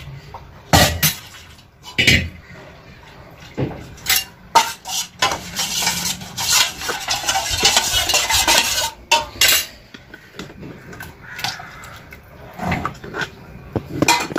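Stainless-steel kitchen vessels knocking and clinking while wheat-starch batter is poured from a steel bowl into a large steel pot and stirred with a wooden rod. In the middle is a few seconds of scraping as the last of the batter is scraped out of the steel bowl.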